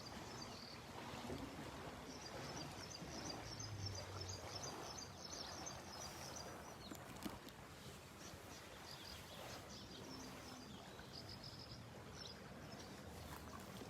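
Faint outdoor lakeside ambience: a soft, steady wash of background noise, with a rapid run of high, thin chirps through the first six seconds or so and a few scattered chirps later.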